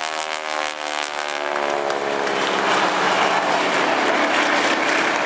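Boeing Stearman biplane's Pratt & Whitney radial engine running on a fly-past, its pitch falling over the first two seconds as it goes by. A broad rushing noise then takes over.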